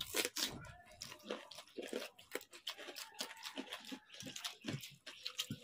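Close-up eating of panta bhat, rice soaked in water: fingers squelching through the wet rice and mouths chewing and smacking, heard as a quick, irregular run of small wet clicks.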